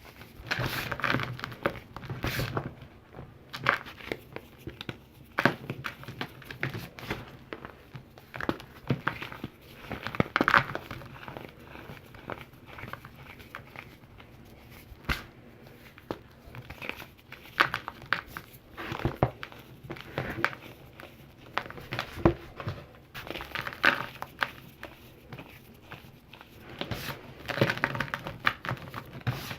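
Chunks of calcium carbonate being crumbled and crushed by hand: irregular crunchy crackling with sharp snaps, in bursts through the whole stretch.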